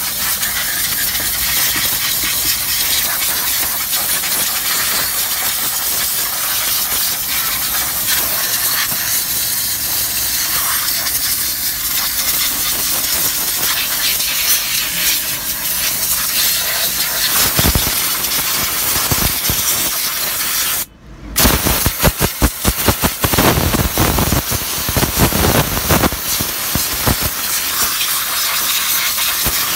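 Hose-fed spray gun hissing steadily as it sprays cleaning liquid over an engine. About two-thirds of the way through, the hiss cuts out for a moment, then comes back in short, uneven spurts as the trigger is worked.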